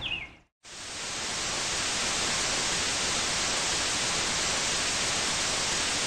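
After a brief silence, a steady hiss of television-style static fades in within about half a second and holds evenly.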